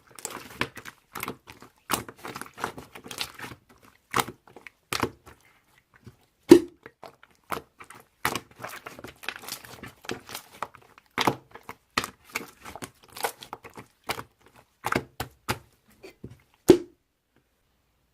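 A string of irregular sharp clicks, taps and crinkles, with two heavier thumps, one about a third of the way in and one near the end, from objects being handled.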